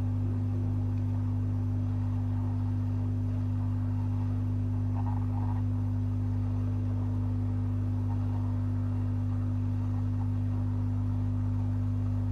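Hot air rework station blowing on a laptop motherboard chip, giving a steady low hum, while its solder is reflowed so the I/O chip's pins seat.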